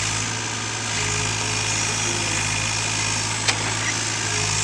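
Takeuchi TB135 mini excavator's diesel engine running steadily, with a single sharp click about three and a half seconds in.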